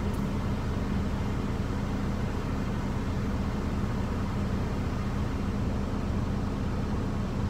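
Steady low hum of a semi truck idling, heard inside the cab, with one constant low tone running through it.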